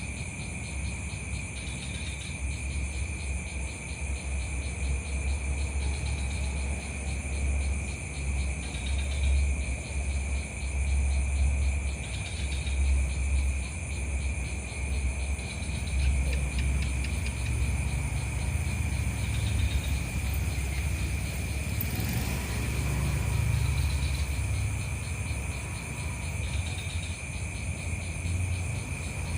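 Night insects trilling steadily at several high pitches, with a short higher note coming back every couple of seconds, over a continuous low rumble.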